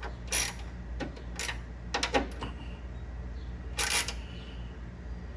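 Hand ratchet clicking and tapping in short, irregular bursts, about half a dozen clicks, as a screw is tightened to clamp ground-wire connectors to a car's metal radiator support, over a steady low hum.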